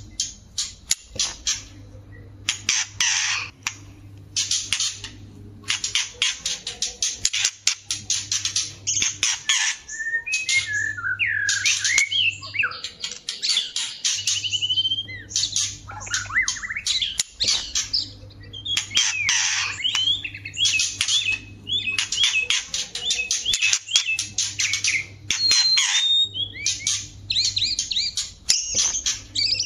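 A female and a male white-rumped shama calling together: bouts of fast, harsh rattling chatter, broken by clear whistled song phrases that rise and fall, mostly in the middle and toward the end. A low hum comes and goes underneath.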